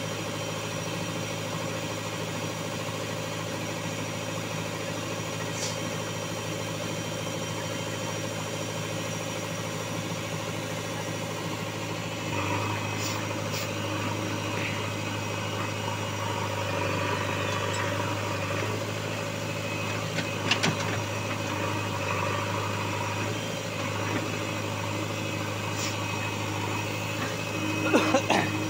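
JCB 3DX backhoe loader's diesel engine running steadily at idle, a little louder about twelve seconds in. A few sharp knocks cut through it, the loudest near the end.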